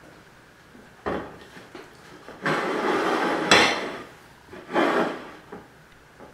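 Objects being handled on a kitchen table: a knock about a second in, then a stretch of rubbing, rustling noise that ends in a sharp knock, and another short rustle near the end.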